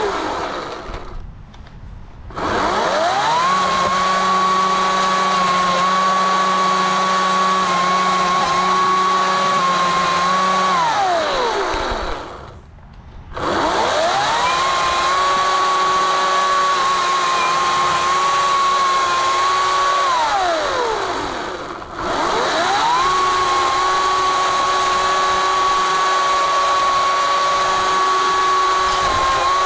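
Ryobi 40-volt 14-inch cordless chainsaw's electric motor running at a steady high whine while cutting a branch. It winds down to near stop three times, about a second in, around twelve seconds in and around twenty-one seconds in, then spins back up each time.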